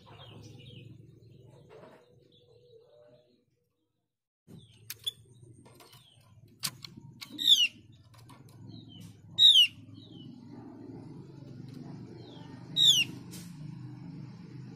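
Female Javan grey-throated white-eye (opior jawa) giving three loud, short, downward-sliding calls about two to three seconds apart, the call a female uses to summon a male. A few sharp clicks and wing flutters come from the bird moving on its perch, over a steady low hum.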